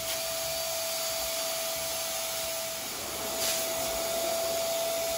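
Portable electric balloon pump running steadily, blowing air into a foil balloon, a steady rush of air with a constant motor hum.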